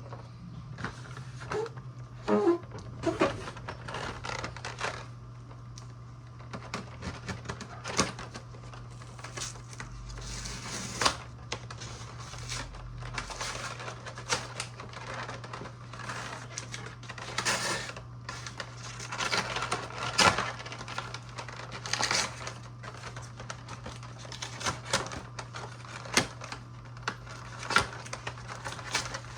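Trading-card packaging being opened and handled: irregular crackles, crinkles and clicks of wrapper and cardboard, over a steady low hum.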